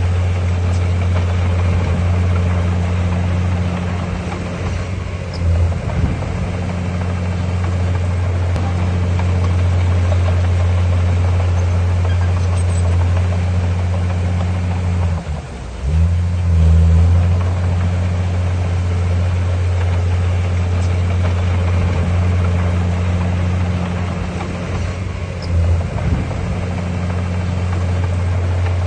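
Heavy diesel engine of a bulldozer running steadily under load as it works. About fifteen seconds in it dips briefly and then surges louder, with smaller changes in load about five and twenty-five seconds in.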